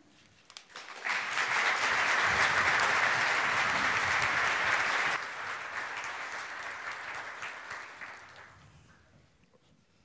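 Audience applauding. The applause starts about a second in, holds loud for a few seconds, then drops and fades away.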